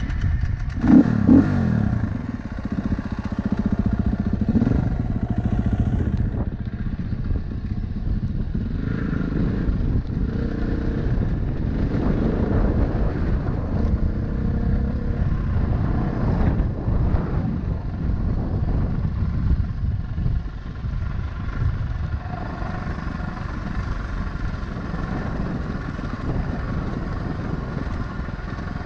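Engine of an off-road vehicle running steadily, with a brief rev about a second in.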